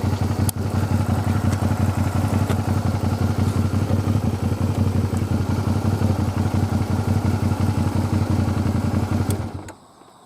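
Motorcycle engine idling steadily, then switched off near the end, leaving faint crickets.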